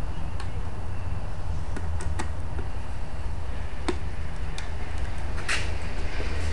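Scattered light clicks and taps of a screwdriver on the plastic housing and timer plate of a Fleck 5600 water softener control valve as its screws are driven back in, over a steady low hum. A brief rustle comes about five and a half seconds in.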